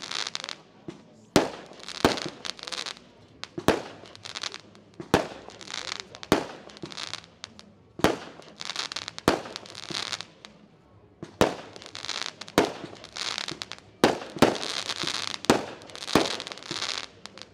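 Fireworks display: a sharp bang every one to two seconds, each followed by about a second of crackling from the bursting stars.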